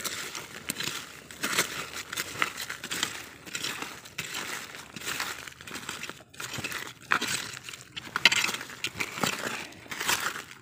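Hand scraping and clearing dead leaves and gritty soil from the forest floor: irregular crunchy rustling and scratching strokes.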